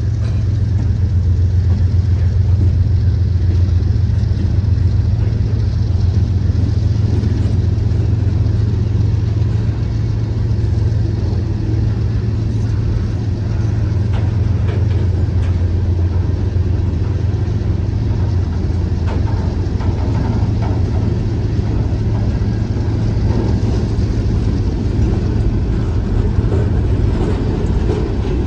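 Diesel freight locomotives running past with a steady, loud low engine rumble.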